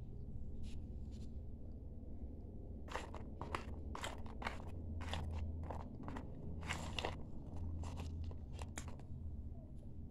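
A person biting and chewing dry clay, a quick run of crisp crunches starting about three seconds in and dying away near the end.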